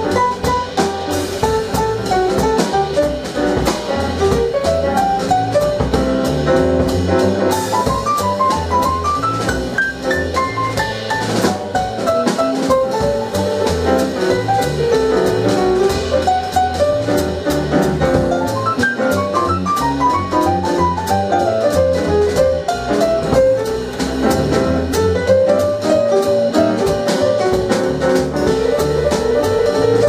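Small jazz group playing live: a piano solo on a Steinway grand, with quick runs that climb and fall again, over bass and drum kit.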